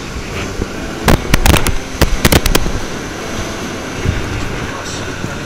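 Surf washing up the beach, with a steady noise. About a second in comes a quick, irregular run of sharp knocks or clatters, louder than the surf, lasting under two seconds.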